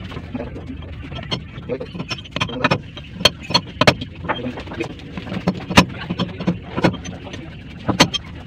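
Hammer striking a metal tube used as a drift to drive a new bearing onto a radiator pump's impeller shaft: a dozen or so sharp metallic knocks that ring briefly, irregularly spaced and coming thicker from about three seconds in, over a steady low hum.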